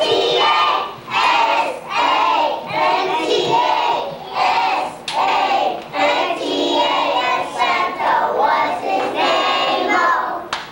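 A group of young children singing a song together in unison, loud, in short regular phrases.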